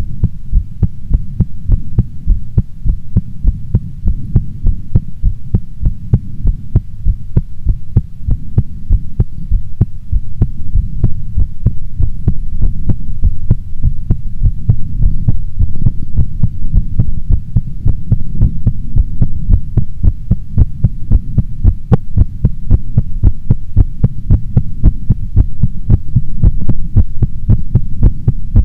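A woman's heartbeat: low, regular thumps in a steady, even rhythm.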